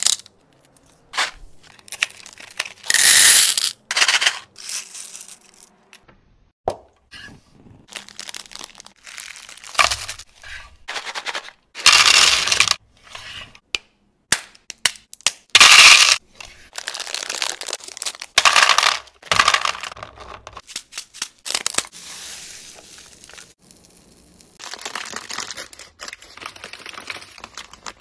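Candy packaging handled up close: plastic wrappers crinkling and tearing open, and candies pouring and clattering into a plastic serving tray, in separate bursts with short pauses and sharp clicks between them.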